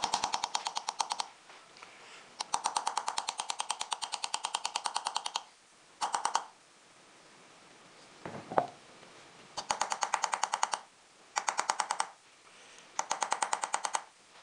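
Hand engraving on a silver sheet bedded in pitch: the steel engraving tool is tapped rapidly against the metal, about eight to ten sharp metallic taps a second, in short runs broken by pauses. A single duller knock comes about halfway through.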